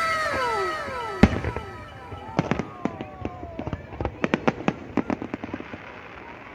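Aerial fireworks display: several whistles falling in pitch together, a loud bang about a second in, then a rapid run of sharp crackling pops.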